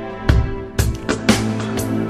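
Background music with a steady beat: drum hits about twice a second over sustained instrumental tones.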